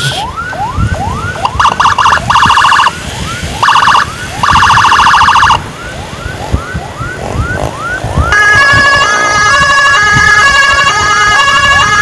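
Emergency sirens of an ambulance escort clearing traffic: a rapid rising whoop repeating about three times a second, broken twice by bursts of fast warble. About eight seconds in, a louder stepped pattern of alternating tones joins and becomes the loudest sound.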